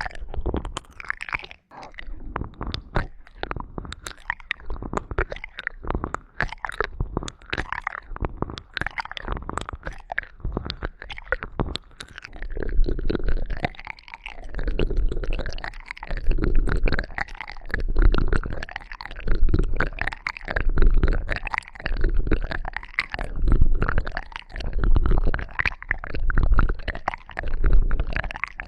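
ASMR ear-cleaning sounds worked close on a microphone: irregular crackling and clicking at first, then from about halfway a rhythmic rubbing that swells and fades about once a second.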